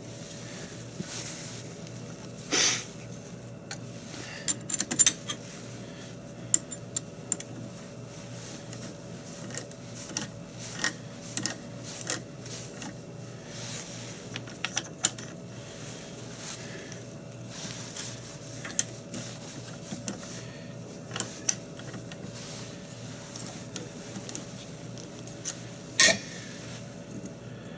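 Scattered metal clicks and clanks of a woodturning lathe chuck being handled and tightened with its T-handle chuck key, the loudest clanks at about two and a half seconds in and near the end, over a steady faint hum.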